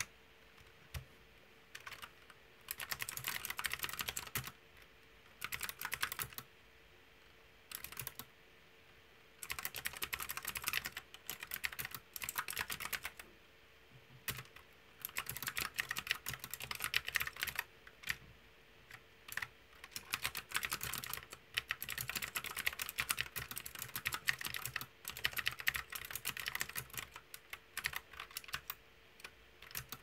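Fast typing on a mechanical keyboard with round typewriter-style keycaps: dense runs of key clacks lasting a few seconds each, broken by several short pauses.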